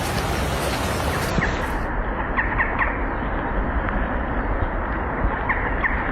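Steady rush of floodwater, turning duller about two seconds in. Short bird calls sound over it in two groups, a few quick calls just after the change and again near the end.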